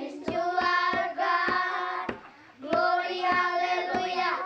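Children singing a song together, with hand claps along with it; the singing breaks off for about half a second around two seconds in.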